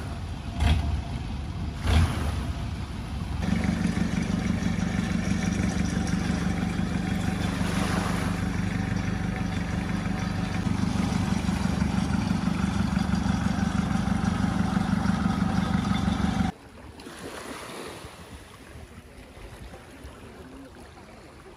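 A boat engine running steadily as a loud low hum, starting a few seconds in and cutting off abruptly well before the end. Before and after it, softer wind and water, with two knocks near the start.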